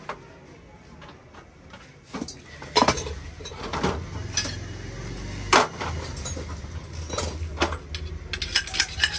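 Sharp metal clinks and knocks as the parts of a stainless-steel gas stove are handled and pulled apart: a few separate strikes, then a quick run of clinks near the end. A low rumble comes in underneath about halfway through.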